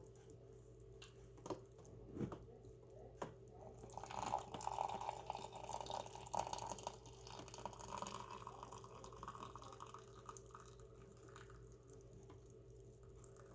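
Hot water being poured into a mug of hot chocolate mix: a few light clicks of handling, then a pouring, splashing stream starting about four seconds in that tapers off after several seconds.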